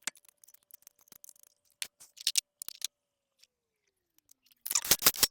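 Scattered metal clicks and clatter from a car wheel and its lug nuts being fitted back onto the hub, with a quick run of rapid clicking near the end.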